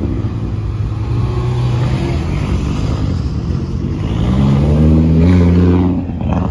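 A car engine running, then revving up: its pitch climbs from about four seconds in and drops away again shortly before the end.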